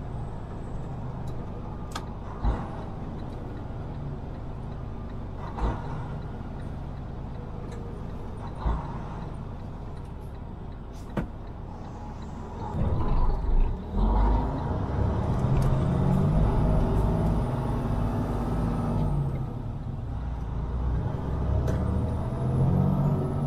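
Semi truck's diesel engine running as the truck drives slowly, with a few short thumps in the first half. About halfway through the engine gets louder, its note rising and falling as it pulls.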